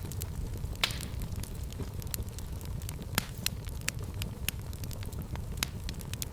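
Fire burning in a fireplace, crackling steadily over a low rumble of the flames, with frequent sharp pops; the two loudest come about a second in and about three seconds in.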